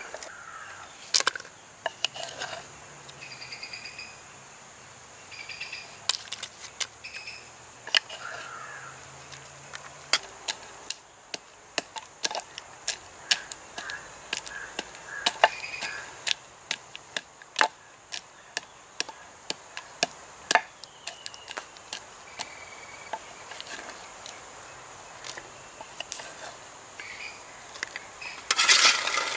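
Jackfruit seeds clattering and knocking against a ladle and cooking pots as they are scooped and dropped in, a scatter of sharp clicks with a louder rattle near the end. Birds call in the first few seconds over a steady high insect drone.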